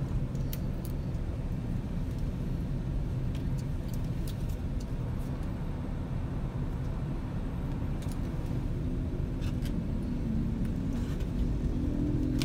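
Steady low rumble of a car idling, heard from inside the cabin, with a few faint crinkles and clicks of a plastic sauce sachet being torn and squeezed.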